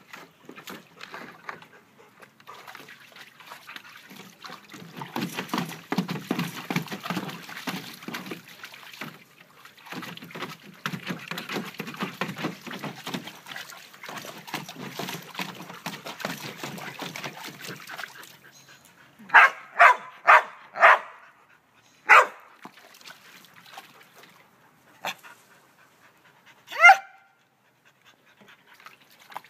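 A dog: a long run of rapid, soft noises, then four sharp barks in quick succession about two-thirds of the way in, two more single barks, and a higher yelp that slides in pitch near the end.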